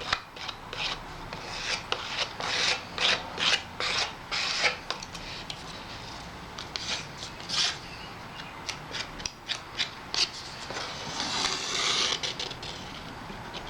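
Wood glue being spread by hand over a wooden runner: a run of short rubbing strokes, about two a second at first, then sparser, with one longer rub near the end.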